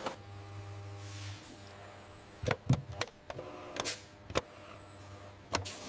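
Can-labelling machinery: a low mechanical hum for the first second and a half, then sharp clacks and knocks at uneven intervals.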